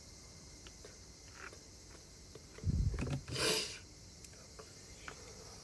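Faint clicks of cardboard jigsaw puzzle pieces being handled and pressed into place. About three seconds in there is a brief bump followed by a short rustle.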